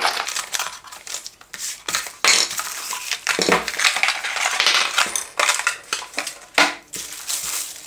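Vacuum accessories and their packaging being unboxed and handled: irregular rustling with many small clicks and knocks of plastic parts.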